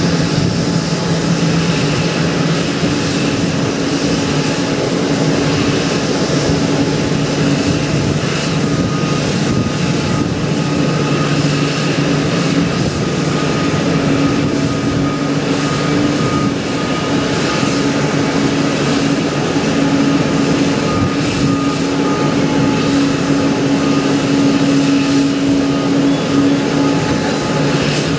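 Boeing 787 jet engines idling: a steady rush with a low hum and a faint high whine.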